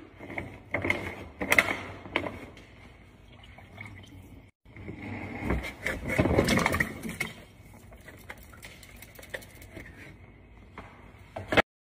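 Food tipped from a clear plastic container into a steel cooking pot: a wet, noisy rush with knocks about six seconds in. Scattered clicks and knocks of handling come before it.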